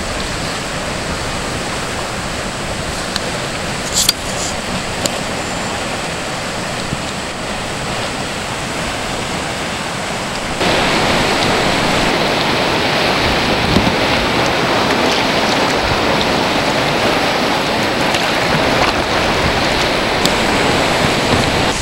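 White water rushing over a weir and through small rapids, a steady noisy rush that gets suddenly louder about halfway through. A single brief knock sounds about four seconds in.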